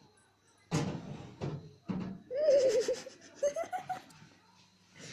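Laughter: three short breathy bursts, then a longer, higher laugh that warbles up and down about two seconds in.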